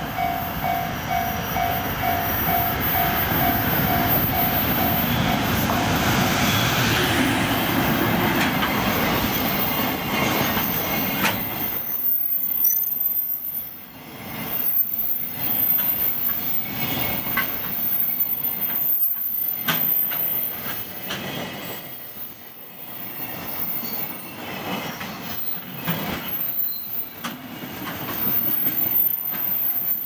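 EF510 electric locomotive and its container freight train passing close by. A level-crossing alarm rings in quick even dings for the first few seconds under the locomotive's heavy rumble. After about twelve seconds the container wagons' wheels click and clatter over the rail joints, the loudness rising and falling as the wagons go by.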